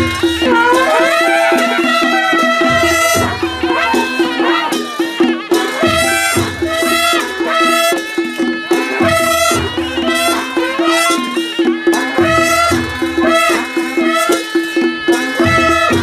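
Panche baja wedding band playing: a shehnai-type reed melody with sliding notes over a steady drone, backed by drums and cymbals, with a deep drum stroke about every three seconds.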